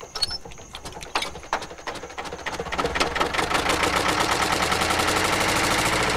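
Stationary diesel engine starting: a few slow, uneven firing strokes, then it catches about two to three seconds in and picks up into a fast, steady, even beat as it settles to running.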